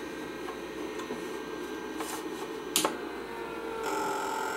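Vintage external hard drive running with a steady whirring hum that gets louder a little before the end, with a single sharp click about three seconds in.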